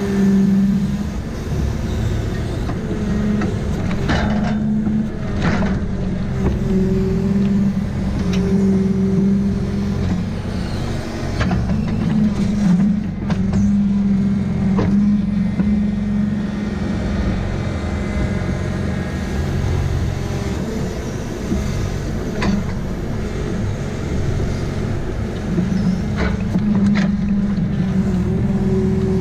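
Valmet 840 forwarder's diesel engine running steadily, its note swelling and easing every few seconds as the hydraulic crane works, heard from inside the cab. Several sharp knocks of logs being dropped into the load space are heard over it.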